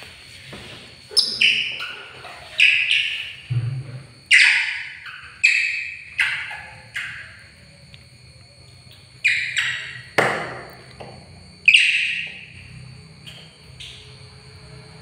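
A series of about ten short, shrill animal calls, each starting sharply and falling away in pitch, in two bursts with a pause in the middle.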